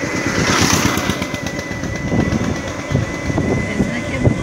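Running noise of a small road vehicle carrying the phone: a rumble with frequent jolts and rattles, and a steady high whine throughout.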